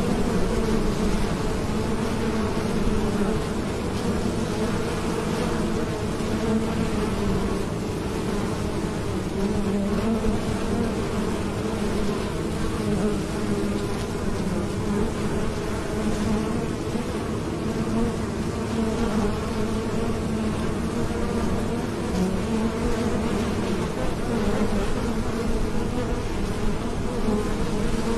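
Many honeybees flying in and out at a hive entrance, a steady, dense buzzing hum.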